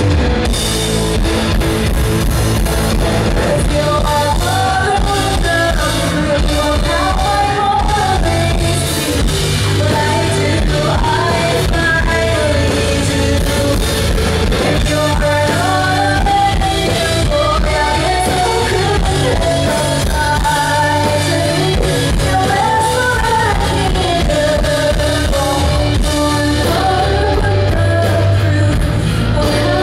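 A woman singing lead with a live rock band: electric guitar, bass guitar and drums. The vocal line holds long notes that rise and fall.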